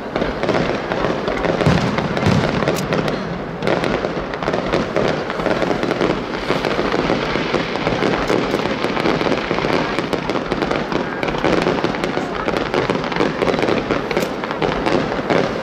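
Aerial fireworks going off without a break: a dense, continuous crackle of many small pops and bangs from bursting shells and crackling stars.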